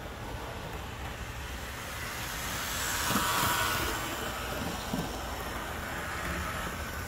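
HO scale Athearn Blue Box RDC-3 model rail diesel car running on the track, its small rubber-band-drive motor and wheels making a steady whirring that grows loudest about three seconds in and then eases off.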